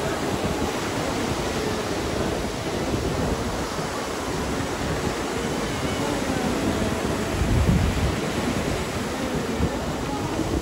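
Ocean surf breaking and washing in, with wind rumbling on the microphone. A louder low rumble swells about seven and a half seconds in.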